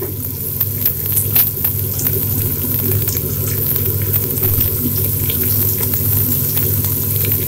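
Prawns and Malabar spinach (pui shaak) stems frying in a steel pan, sizzling with scattered crackling pops over a steady low hum.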